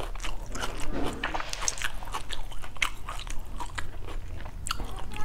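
Close-miked chewing of a mouthful of shredded chicken and onion salad: irregular sharp wet mouth clicks and smacks.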